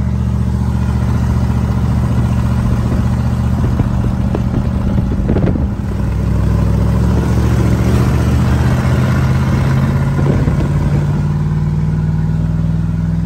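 Box truck's engine running while driving, heard from inside the cab, with its exhaust open where the catalytic converters were cut out. A steady, loud engine drone with a brief dip about halfway through.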